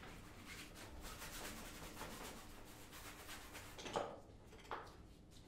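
Paintbrush rubbing and scrubbing across canvas, a faint, steady scratchy swishing. About four seconds in, brushes clatter twice against each other in a plastic bucket.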